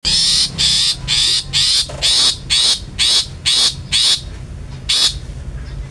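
Long-tailed shrike giving its harsh 'toet toet' call over and over, about two calls a second, then a short pause and one more call near the five-second mark. This is the call used as a lure to rouse other shrikes to call.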